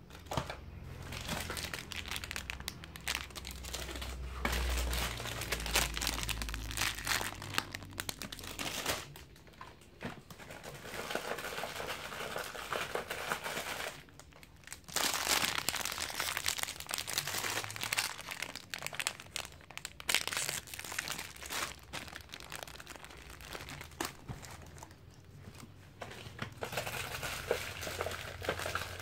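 Hands rummaging through packing paper and plastic-bagged toys in a cardboard shipping box: continuous crinkling and crumpling, broken by a few brief pauses.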